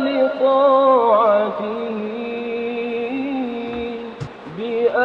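Background Arabic devotional nasheed: a solo voice singing a long, drawn-out held note that wavers slightly, then starting a new phrase near the end.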